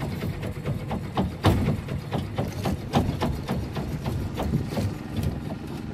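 Irregular knocks and slaps, several a second, of water lapping against the wooden hull of a moored longtail boat.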